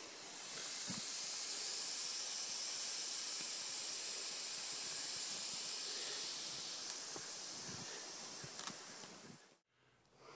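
A steady high hiss that begins about half a second in and cuts off suddenly near the end.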